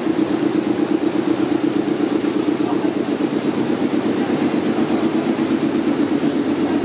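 Stopped Series 719 electric train humming at the platform, its onboard equipment running with a steady low hum that pulses quickly and evenly.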